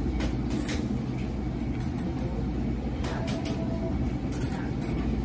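Steady low rumble of restaurant background noise, with several short, light clinks and clatters of dishes and utensils scattered through it.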